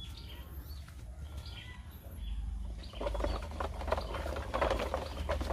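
Plastic toy truck's wheels rolling over dirt with a crackling, scraping rumble that starts about two seconds in and grows louder. Faint bird chirps before it.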